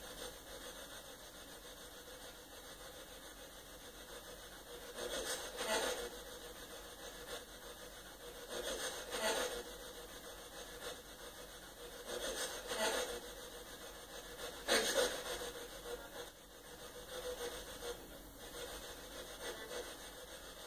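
Faint breathing close to the microphone, soft in-and-out breaths about every three to four seconds, over a low steady hiss.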